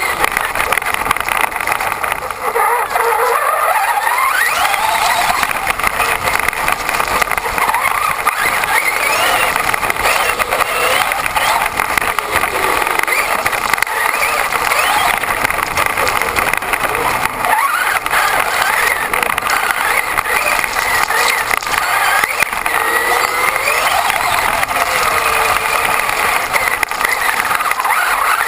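Onboard sound of a Traxxas Stampede 4x4 VXL's Velineon brushless motor and gears whining, rising and falling in pitch as the RC truck speeds up and slows, over a steady rush of tyre and ground noise. Heard from a camera mounted on the truck itself.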